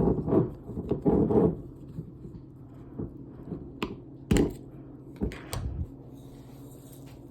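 Handling noise while seasoning popcorn: low rustling at the start, then several sharp clicks and knocks from the seasoning containers and the bowl.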